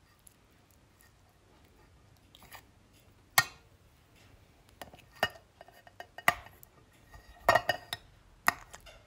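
A spoon clinking and scraping against the sides of a stainless steel pan while stirring softening butter chunks and beeswax pellets. About half a dozen separate clinks come at irregular intervals, with quiet between them.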